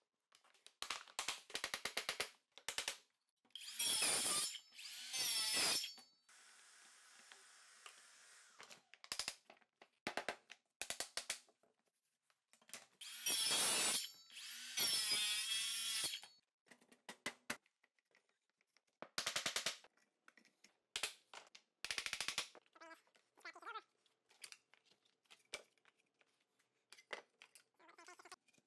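Handheld circular saw cutting laminate flooring planks in two bursts, about four seconds in and again about thirteen seconds in, its pitch rising and falling as the blade spins up and down. Between and after the cuts come scattered knocks and clacks of planks being handled and fitted together.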